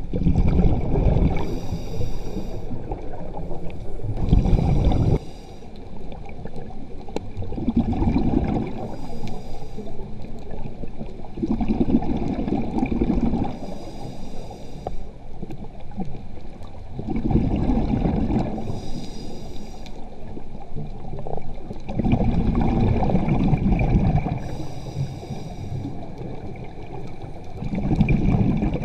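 A scuba diver breathing through a regulator underwater. A short hissing inhale alternates with a longer rumbling gush of exhaled bubbles, about every four to five seconds, for some six breaths.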